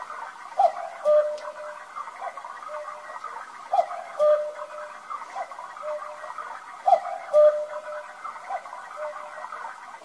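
Black Forest chalet cuckoo clock calling the hour: its bellows-and-pipe cuckoo gives a two-note "cu-ckoo" about every second and a half, alternating louder and softer, with faint mechanism clicks.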